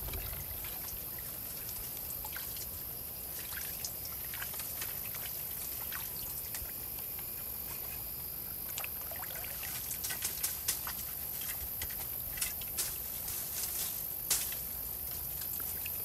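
Water trickling steadily, with scattered light clicks and taps that cluster in the second half.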